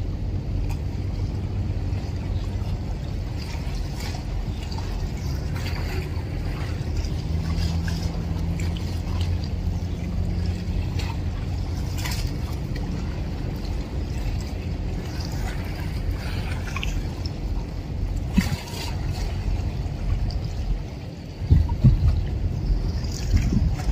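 Deep, steady rumble of a large container ship under way heading out of port, with water splashing and trickling close by; a few louder low bumps near the end.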